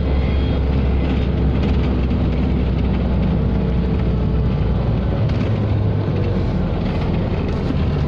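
Busy road traffic heard from inside a moving vehicle: a steady, loud low engine and road rumble. The deepest part of the rumble eases about five seconds in.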